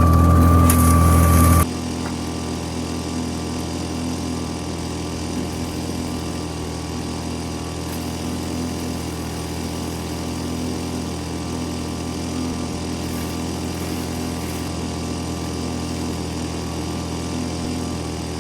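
Small gas engine running steadily at an even speed, dropping a step in loudness about two seconds in.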